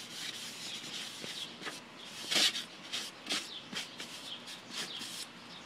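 A hand wiping polyurethane across a sheet of foam core board, then handling the board: irregular rubbing and rustling scrapes, the loudest about two seconds in.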